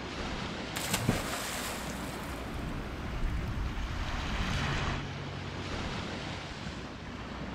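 Ocean waves and wind noise on the microphone: a steady rushing hiss that grows brighter from about one second in and eases off about five seconds in.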